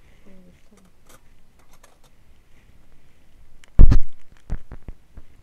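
A sharp knock about four seconds in, followed by a few lighter clicks and taps: kitchen things being handled off to the side.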